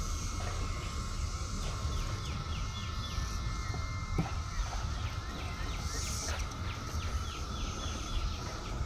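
A bird chirping in runs of quick down-slurred notes, about four or five a second, over a steady cicada drone, with a low rumble on the microphone.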